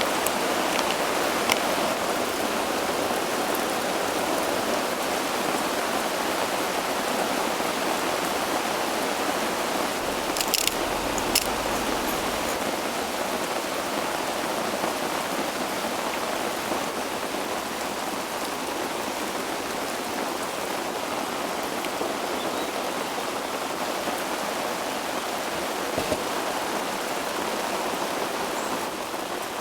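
Steady rush of water from heavy rain, an even hiss with a few sharp taps scattered through it.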